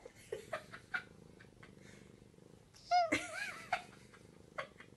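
Tabby cat purring steadily, with one short, loud meow about three seconds in.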